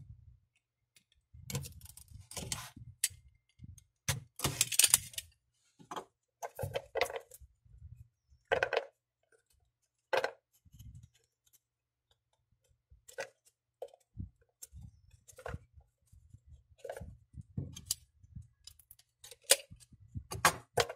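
A small cardboard box being opened by hand: a blade slitting the seal, then irregular scrapes, taps and rustles as the box is turned over and its lid worked loose.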